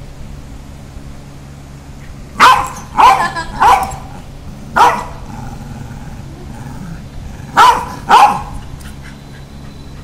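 White fluffy dog barking at close range: three quick barks, a single bark, then two more after a pause. The owners take the barks for jealous scolding.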